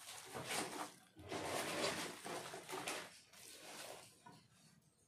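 Spatula stirring and scraping thick, sticky carrot halwa against the sides of a steel kadhai, in several uneven strokes that fade out in the last second or so.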